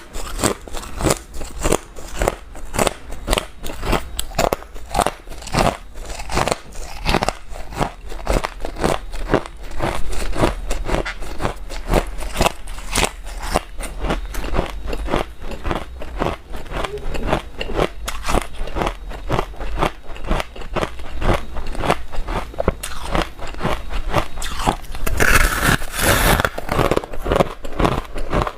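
A person biting and chewing hard ice chunks close to the microphone: a fast, uneven run of crisp crunches, several a second. The crunching turns louder and sharper for a couple of seconds near the end.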